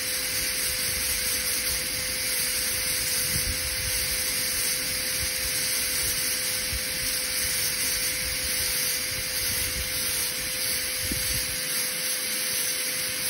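High-speed dental air-turbine handpiece running steadily with a diamond bur, grinding the functional cusp bevel on a model lower molar: an even hiss with a faint constant tone beneath it.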